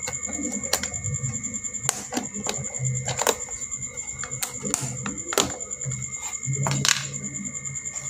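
A plastic food storage box being handled and its lid opened: a run of irregular clicks and taps, with light rustling of the tissue inside.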